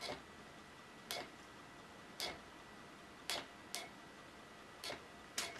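Faint, sharp single taps, seven of them, mostly about a second apart with two coming closer together: fingers tapping on a touchscreen point-of-sale device.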